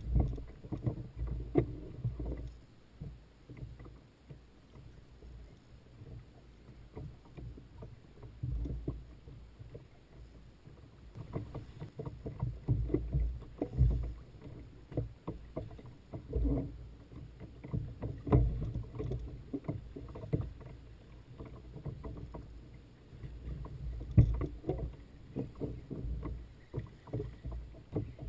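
Sounds of a small boat on the water: irregular low knocks and slaps of water and gear against the hull.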